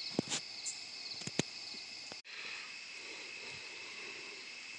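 Steady chorus of crickets trilling at night. A few light clicks sound in the first second and a half, and the sound drops out for an instant a little after two seconds.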